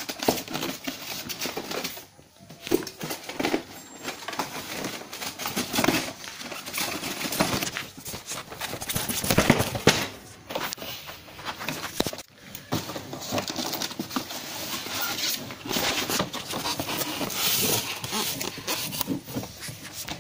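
Cardboard box and plastic packaging being opened and handled: irregular rustling, scraping and crinkling with scattered clicks and knocks.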